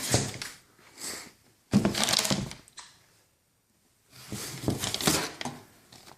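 Packaging being handled while an exhaust is unboxed: several short bursts of rustling and crinkling, with a pause of about a second in the middle.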